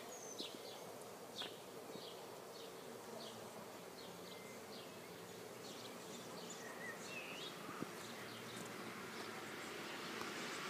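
Outdoor garden ambience: small birds give short, high chirps again and again, over a faint steady buzz of insects. A low rumble grows louder near the end.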